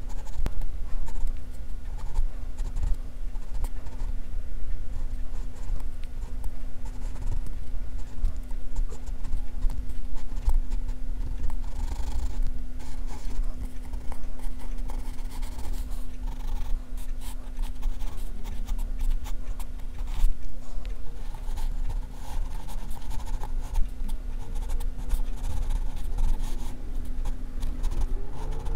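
Pencil scratching on drawing paper in short, irregular sketching strokes, with a steady low hum underneath.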